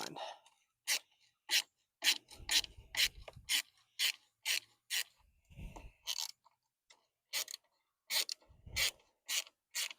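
Ratchet wrench clicking in short strokes, about two a second, as rusted cover bolts are worked loose on a Briggs & Stratton twin-cylinder mower engine, with a few dull knocks among them.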